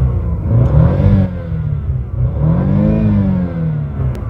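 An engine revving up and dropping back twice, with a sharp click near the end.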